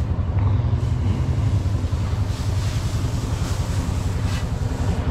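Tractor engine idling steadily with an even low pulse. Straw rustles as it is forked a few times around the middle and near the end.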